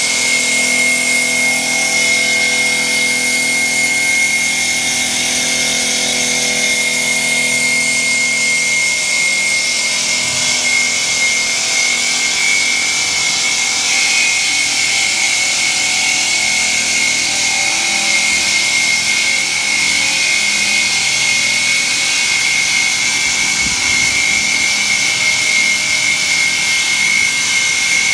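Water-cooled diamond circular saw blade of a CNC stone profiling machine cutting along a granite slab, with a steady high-pitched whine over a constant hiss of blade and spray.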